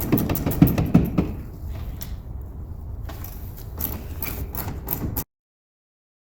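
Socket wrench ratchet clicking in quick runs as the tail light assembly's bolts are undone. The sound cuts off to silence a little over five seconds in.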